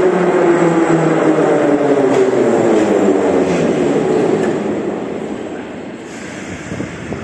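Kyiv Metro train of the Soviet-built 81-717/714 series braking into the station: its whine falls steadily in pitch over the wheel noise, and the noise dies down as the train comes to a stop about five or six seconds in.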